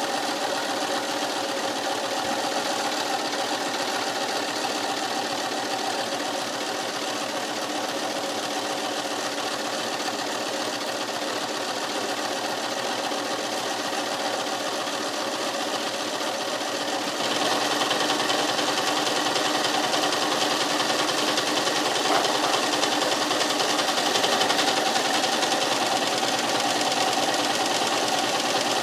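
Brother electric sewing machine running steadily while stitching fabric; about two-thirds of the way through it gets louder and stays louder.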